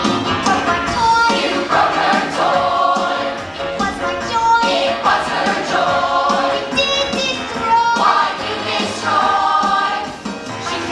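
A song from a stage musical: voices singing together over instrumental accompaniment.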